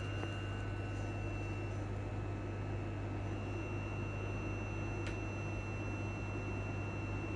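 Steady low hum and ventilation noise inside a standing Class 334 electric multiple unit, with a thin high whine held throughout. A single faint click comes about five seconds in.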